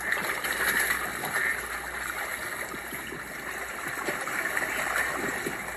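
Water churning and splashing as a packed school of carp thrash at the surface while feeding: a steady wash of many small splashes, swelling about a second in and again near the five-second mark.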